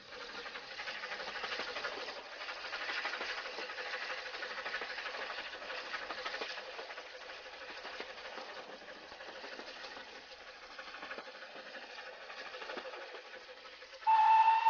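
Stepney, a Brighton-built 1875 LB&SCR 'Terrier' tank engine, running along the line, heard from the footplate as a steady hiss and rattle. Near the end her whistle sounds once, loud and steady for about a second.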